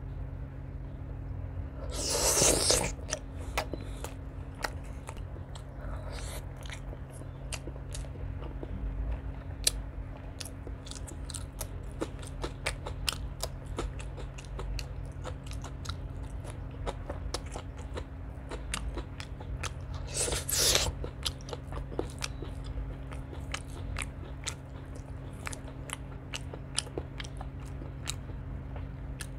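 Close-miked eating of chicken liver and gizzard curry with rice and raw green vegetable stems: steady wet chewing with many small clicks and smacks, and two louder crunches, one about two seconds in and one about twenty seconds in.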